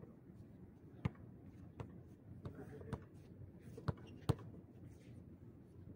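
A basketball bouncing on a concrete court, about five sharp thuds at uneven intervals, the loudest about four seconds in.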